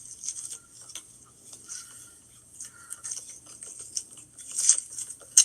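A brush stroking through a dog's tangled coat: irregular short scratchy strokes, with one sharp click near the end.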